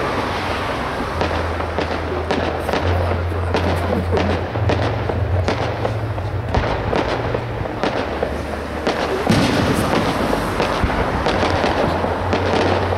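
Fireworks display: aerial shells bursting, a rapid, irregular series of bangs and crackles.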